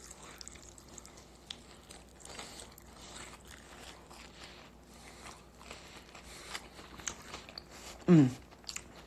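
Soft crunching and chewing of fried chicken wings, a scatter of small bites and mouth clicks, with a short voiced 'uh' falling in pitch near the end.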